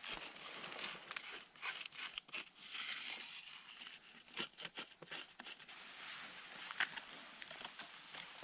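Quiet rustling and crinkling of dry sticks and tinder being handled, with scattered small snaps and clicks, as a campfire is laid.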